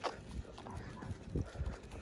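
A person's footsteps on asphalt at a walking pace, a few soft, uneven thuds.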